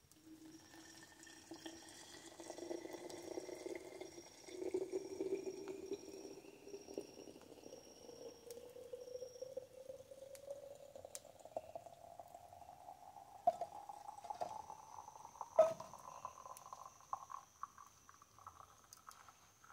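Freshly boiled coffee being poured in a slow stream into a container. The pitch of the filling vessel rises steadily as it fills, and there are two sharp knocks about two-thirds of the way through.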